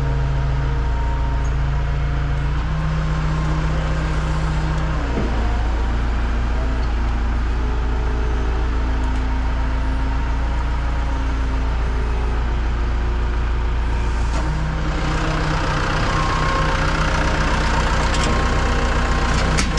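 Hino rollback tow truck's diesel engine running steadily with a low rumble and hum. About fifteen seconds in the sound changes and turns brighter and noisier.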